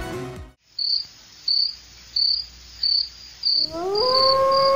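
Music cuts off, then crickets chirp in short, evenly spaced pulses, roughly one every 0.7 seconds. Near the end, a loud howl rises in pitch and then holds a steady note.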